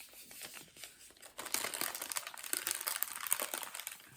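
Packaging crinkling as it is handled. It is quiet and sparse at first, then becomes busier and louder about a second and a half in.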